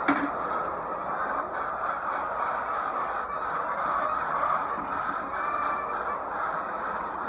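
Continuous din of a large flock of hens clucking and calling together in a poultry house, with a sharp click right at the start.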